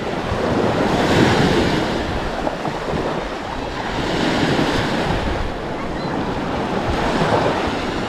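Small waves breaking and washing onto a sandy beach, the surf rising and falling about every three seconds, with wind buffeting the microphone.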